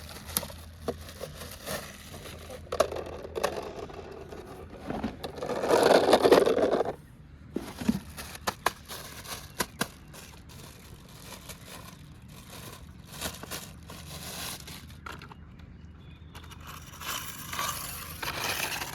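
Hands handling a plastic toy dump truck and its packaging: scraping, crinkling and scattered clicks, with a louder rustling stretch about six seconds in and another near the end.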